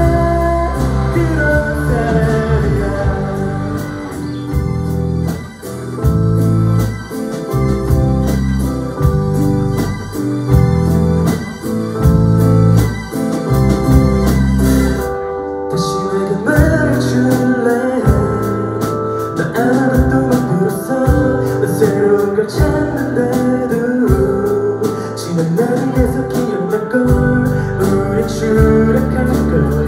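Live band playing with a sung lead vocal over acoustic guitars, electric bass, keyboards and drums, with a steady beat.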